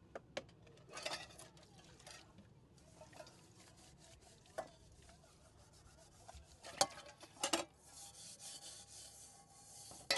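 Steel cooking pots being scrubbed and handled by hand: a rubbing, scraping sound, with a few sharp knocks of the pots against each other and the bucket and heavier scraping near the end.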